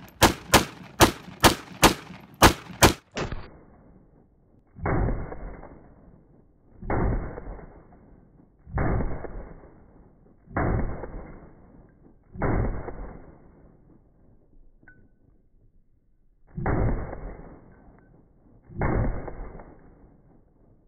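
Micro Draco AK pistol, chambered in 7.62×39mm, firing about eight quick semi-automatic shots, two a second, over the first three seconds. Then, after a short pause, seven more single shots about two seconds apart that sound duller and muffled, each with a tail lasting about a second.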